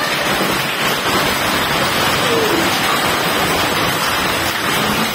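Heavy downpour with hail falling on a concrete yard: a dense, steady hiss.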